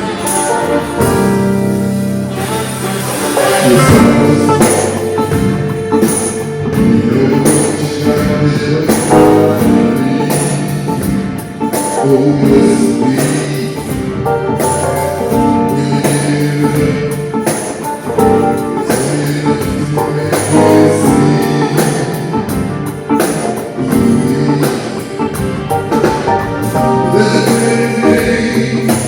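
Live band playing an upbeat song, with bass, guitar and a steady drumbeat.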